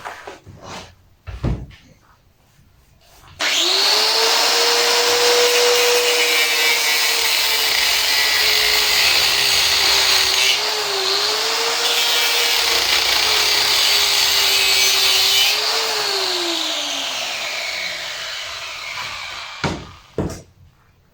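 Angle grinder with a cut-off disc cutting metal: it starts suddenly a few seconds in after some knocks of handling, runs at a steady high whine with a grinding hiss, dips briefly as it bites, then is switched off and spins down with a falling whine.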